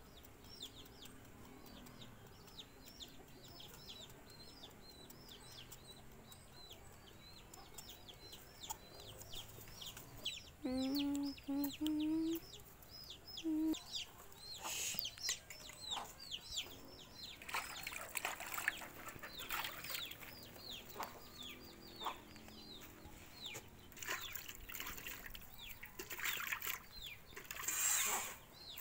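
Birds chirping in quick, repeated short notes throughout. About ten seconds in there is a brief low animal call in a few pieces, and in the second half irregular rustling and scraping noises.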